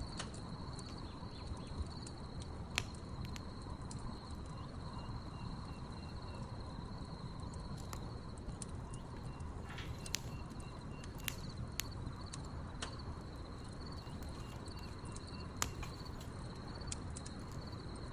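Wood fire crackling, with scattered sharp pops, under a steady high cricket trill. Now and then a second, fainter run of quick pulsed chirps comes in.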